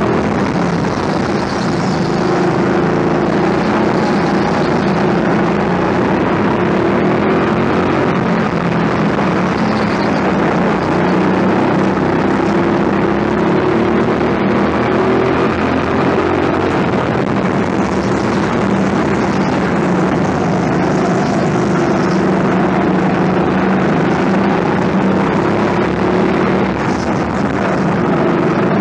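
Go-kart engine running at speed through the corners of an indoor track, its pitch rising and falling with the throttle over the steady noise of the drive.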